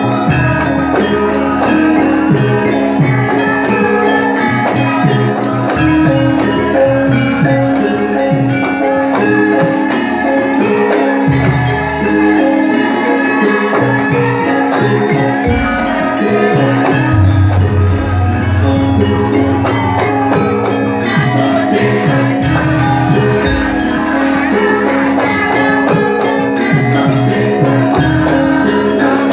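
Music with a steady beat and jingling percussion over sustained pitched notes.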